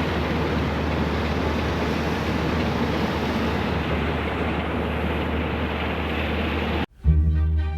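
Steady roar aboard a ship at sea: a low engine hum under rushing wind and water noise, cutting off suddenly about seven seconds in. Music with sustained string notes begins right after.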